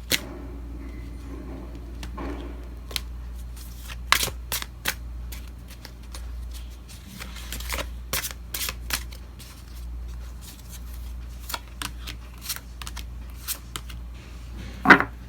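A deck of tarot cards being shuffled by hand: scattered sharp snaps and flicks of the cards over a low steady hum, with a louder knock near the end.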